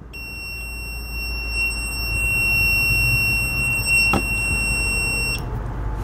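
Digital multimeter's continuity beeper sounding one steady high tone as its clip leads hold the replacement thermal fuse, showing the new fuse conducts. The tone cuts off suddenly about five seconds in, with one sharp click shortly before.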